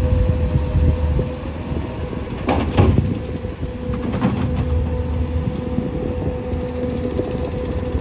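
Takeuchi compact excavator's diesel engine running steadily with a steady whine over its low hum. Sharp clanks and scrapes come in two clusters, about two and a half and four seconds in. A faint fast rattle starts near the end.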